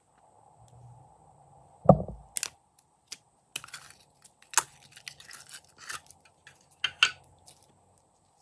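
Pink and blue slime being worked out of a plastic tub and stretched by hand: a loud dull knock about two seconds in, then a string of sticky crackles and pops as the slime peels away.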